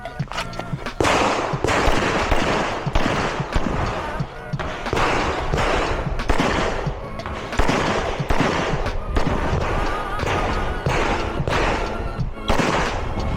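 Airsoft pistol firing many quick shots in strings, starting about a second in, over background music.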